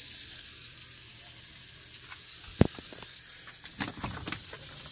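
Steady hissing background noise, with one sharp click a little past halfway and a few softer knocks about a second later.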